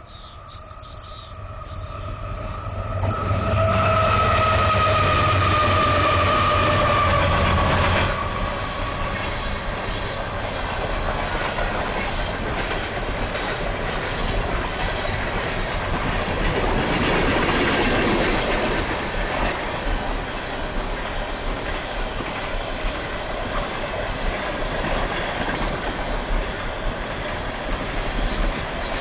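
A train passing on a track about 20 ft away, loud and swelling in over the first few seconds. A horn-like tone drops in pitch as the front goes by and fades out about a third of the way in. The cars keep rolling past with a clickety-clack, with a short high wheel squeal a little past the middle.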